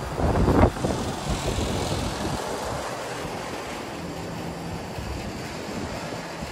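Wind buffeting the microphone in heavy gusts for the first second or so, then settling into a steady rush of wind.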